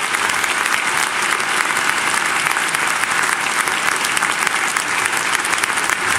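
Large audience applauding: steady, dense clapping.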